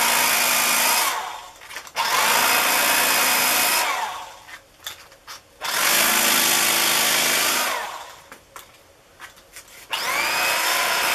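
Electric carving knife cutting through a foam plug, run in short bursts of about two seconds, four in all: one stops about a second in, then three more follow. At the end of each run the motor's whine falls in pitch as it winds down, with small rustles and clicks of the foam between runs.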